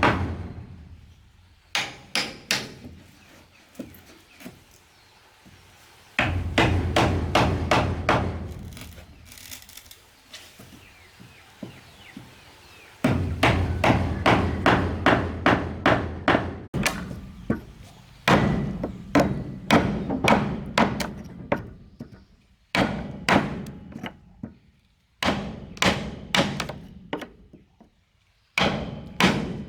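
A hammer striking wood again and again, in runs of several quick blows about three a second with short pauses between them, as in driving nails into wooden planks.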